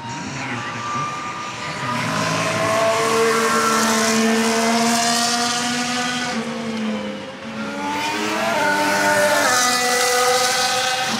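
Formula 1 cars' 1.6-litre V6 turbo-hybrid engines screaming past on track, the engine note gliding and stepping through gears. The sound swells twice: two loud passes, the first about three to six seconds in, the second near nine to ten seconds.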